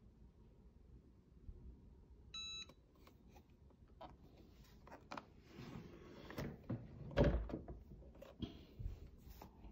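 Cricut EasyPress heat press giving one short electronic beep, followed by rustling and handling noises with light knocks and a louder thump about seven seconds in.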